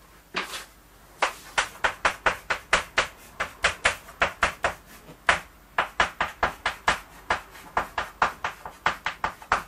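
Chalk striking a blackboard stroke by stroke as characters are written: a quick run of sharp clicks and taps, about three or four a second, with a short pause about a second in.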